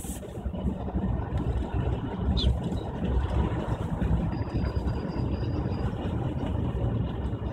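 Suzuki Jimny's 1.3-litre four-cylinder petrol engine running as the car drives along, a steady low engine and road rumble heard from inside the cabin.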